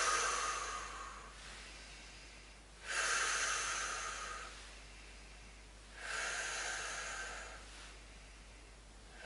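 A woman's slow, audible breaths, one every three seconds or so, each a soft hiss lasting a second and a half or more, paced with a lying shoulder lift-and-lower exercise.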